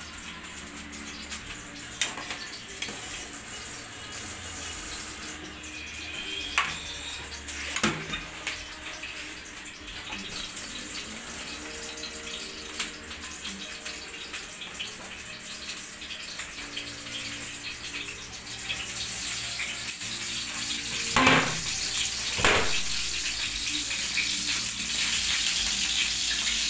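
Kitchen noise: a steady hiss with scattered clinks and knocks of pots and utensils. About two-thirds of the way in it grows louder as red onion pieces sizzle in hot oil in a wok, with two sharp knocks shortly after.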